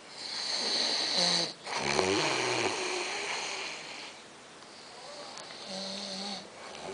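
A person snoring: a hissing breath, then a rattling snore that rises and falls about a second and a half in, a long hissing breath out, and a short buzzing snore near the end.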